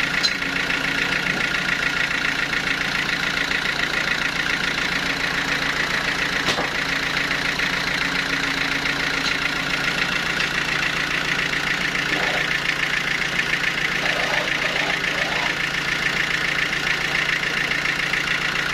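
Sawmill machinery running steadily: a motor-driven drone with a high whine over a fast, even pulse.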